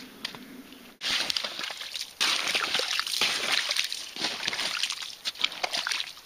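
Wet slush and broken ice chunks sloshing and crunching in water at a hole in the ice, full of small crackling impacts. It starts suddenly about a second in.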